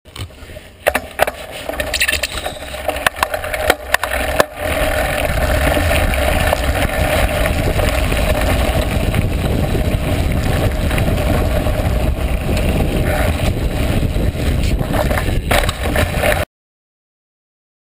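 Downhill mountain bike rolling fast down a dirt trail, heard through a GoPro action camera: a continuous rumble of wind and tyre noise, with knocks and rattles from the bike over the first few seconds. The sound cuts off suddenly near the end.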